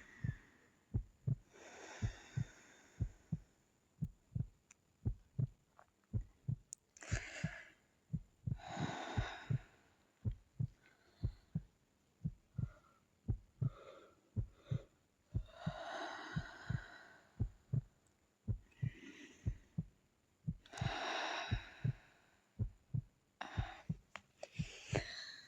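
A woman breathing slowly and softly in sleep, a hissy breath every few seconds, over a steady low thudding heartbeat.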